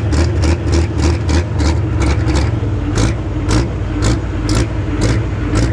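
Diesel engine of a pro stock pulling tractor running at low revs, a heavy drone with sharp ticks a few times a second.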